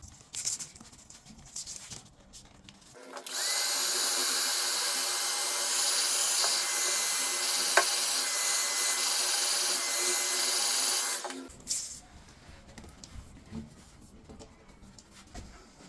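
A small power tool's electric motor running at a steady speed for about eight seconds, starting and stopping abruptly, with light handling noises before and after.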